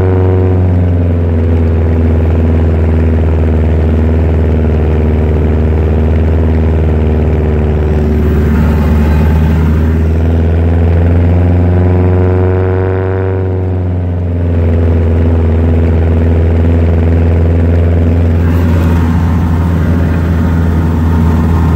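Thiokol 1404 Imp snowcat's engine running steadily under way. It eases down about a second in, picks up around the middle, then drops back with a brief dip in level and runs steady to the end.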